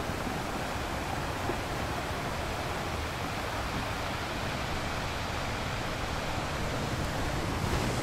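Steady wash of ocean surf breaking, an even rushing noise without distinct individual waves.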